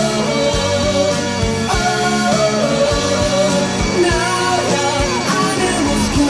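Rock song with a sung vocal over guitars and drums, with a steady beat.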